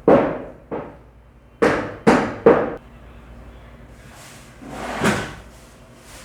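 Butcher's cleaver chopping meat on a block: five heavy blows in about two and a half seconds, then a duller thud about five seconds in.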